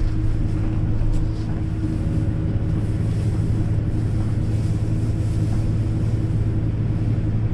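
Airliner cabin noise while taxiing after landing: the engines' steady hum with a couple of held low tones.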